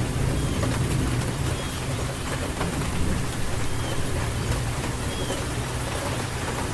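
Steady rain falling, with dense fine drop ticks over a low rumble, and faint short bird chirps about once a second.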